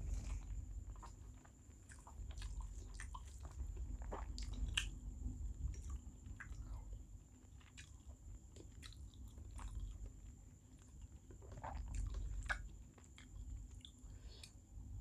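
A person chewing a mouthful of rice and small-fish curry, with scattered wet mouth clicks and smacks.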